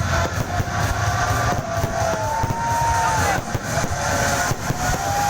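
Fireworks display: dense crackling and popping with a steady low rumble, and three or four drawn-out whistles that hold for about a second and dip in pitch as they end.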